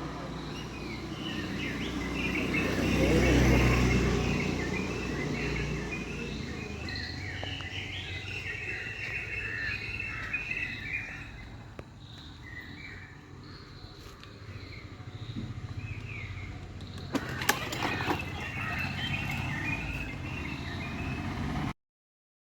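Small birds chirping over steady outdoor background noise. A low rumble swells and fades about three to four seconds in, there are a few sharp clicks near the end, and then the sound cuts off suddenly.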